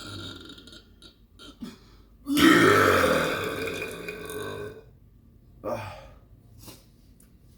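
A person burping: one long, loud, low burp starting about two seconds in and lasting about two and a half seconds, followed by a short, softer sound a second later.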